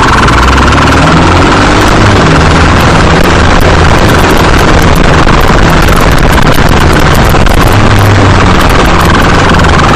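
Motorcycle engine running at speed in a chase, with heavy wind rushing over the microphone. The engine's low note rises and falls as the rider works the throttle.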